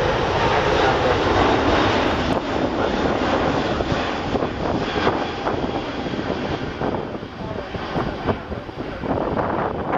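Airbus A380's four Engine Alliance GP7200 turbofans at takeoff thrust as the airliner climbs out after departure: a loud, steady rushing jet noise that fades somewhat in the second half.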